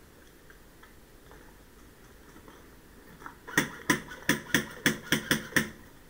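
Airsoft rifle fired shot by shot: about eight sharp shots in quick succession over two seconds, starting about three and a half seconds in.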